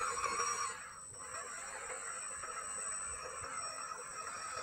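Small brushed electric motor and gearbox of a 1/12-scale RC crawler whining as it crawls up a steep dirt slope under load. It is louder in the first second, then settles to a steady whine.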